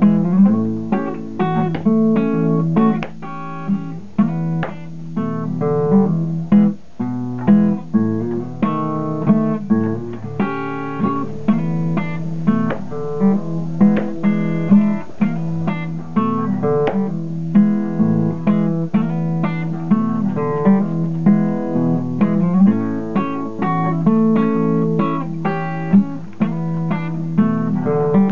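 Acoustic guitar playing a blues instrumental, a steady run of plucked notes and strums.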